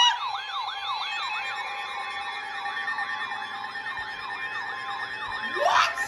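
Emergency alert tones from weather alert radios, sounding for a severe thunderstorm warning: a siren-like warble sweeping up and down about twice a second over steady tones, with a quick upward sweep near the end.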